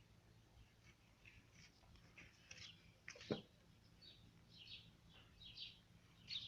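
Near silence with faint, scattered bird chirps and a single sharp knock about three seconds in.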